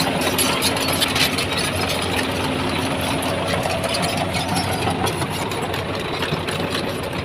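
Diesel engine of a construction vehicle, an excavator or dump truck, running steadily.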